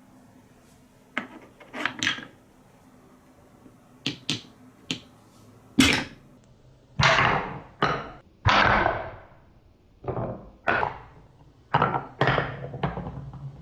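Marbles on a wooden marble run: a string of sharp wooden clacks as they drop and bounce, then several longer rushing sounds that die away, each lasting up to about a second.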